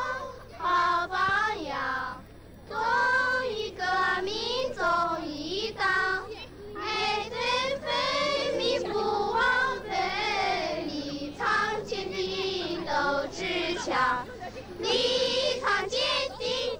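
A group of children singing a song together, in phrases with held, sliding notes and short breaks between them.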